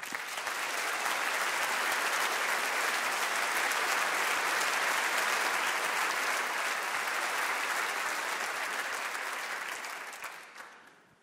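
Large seated audience applauding, a steady dense clapping that starts at once and dies away near the end.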